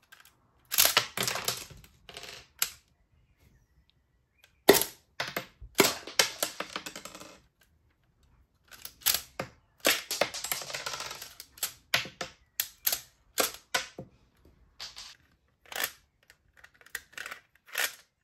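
A LEGO Technic blowback pistol mechanism being worked by hand: sharp plastic clicks and clatters. Some come as rapid runs of clicks and some as single snaps, with short pauses between them.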